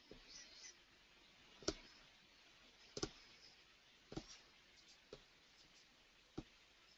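Faint, separate small clicks, about five spread over several seconds, over quiet room tone.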